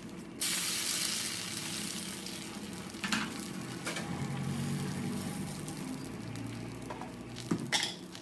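Eggs frying in hot oil in a pan, a steady sizzle that jumps up sharply about half a second in, as a second egg goes into the pan, then slowly eases off. A few light clicks and knocks about three seconds in and near the end.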